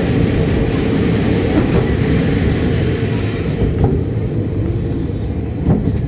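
Onboard running noise of a KiHa 52 diesel railcar under way: a steady low rumble of its diesel engines and wheels on the rails, easing a little about halfway through, with a couple of faint rail clacks.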